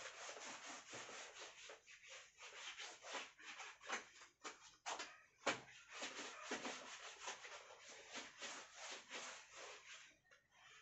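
A cloth rubbed back and forth across a chalkboard, wiping off chalk writing: a faint run of quick, uneven scrubbing strokes.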